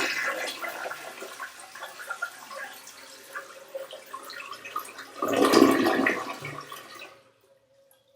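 Pull-chain toilet flushing: rushing water that eases off, then surges loudly again about five seconds in before stopping about seven seconds in. A faint steady tone lingers near the end.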